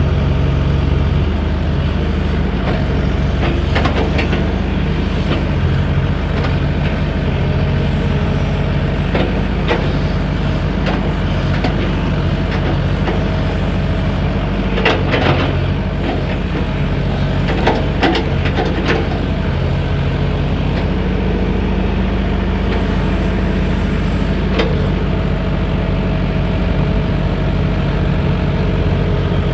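Excavator engine running steadily under work, with a few short metallic clanks and squeaks from the boom and bucket about halfway through.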